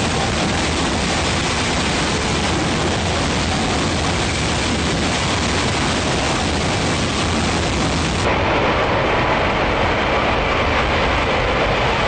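F-35B Lightning II jet in a low hover for a vertical landing: the loud, steady rush of its F135 engine and shaft-driven lift fan blasting downward. About eight seconds in the sound changes abruptly to a slightly louder, duller stretch of the same kind of jet noise.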